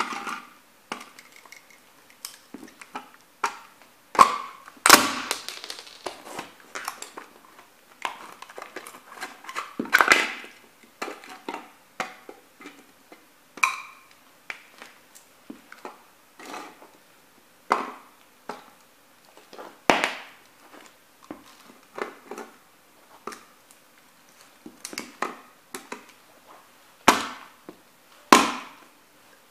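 Sneaker soles stomping and grinding on a small toy truck with a metal cab: irregular sharp cracks, crunches and the clatter of broken pieces on a board. The hardest stomps come about five seconds in, around ten and twenty seconds, and near the end.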